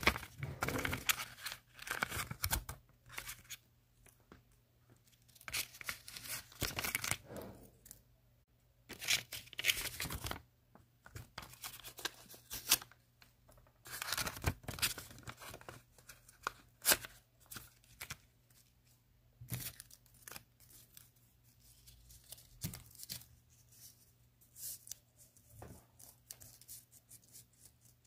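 Sheets of paper being torn and handled, rustling and ripping in irregular bursts that grow sparser and quieter in the second half.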